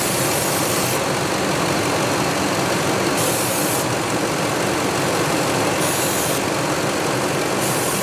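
A 2003 Ford F-150's engine idling, with a high hiss that comes and goes about four times. The engine has a vacuum leak at a perished rubber boot, which sets the lean codes P0171 and P0174.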